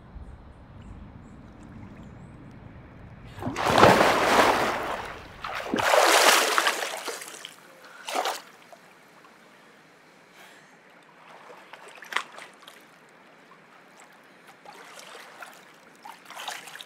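Water splashing heavily in a swimming pool twice, a few seconds in, as a body goes into the water and thrashes. Then smaller splashes and sloshing as people move about in the pool.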